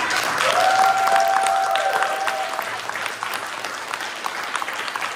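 Audience applause, a dense patter of hand claps that is loudest at first and slowly dies down. Over it, a single held tone lasts about two seconds near the start.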